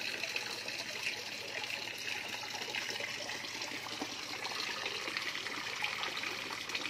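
Water trickling steadily into a fish pond, an even splashing hiss with no breaks.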